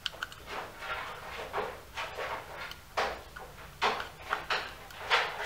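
Clear acrylic Raspberry Pi case being handled while the fan's wires are pushed onto the header pins: irregular plastic clicks and scrapes, the sharpest about three seconds in and near the end.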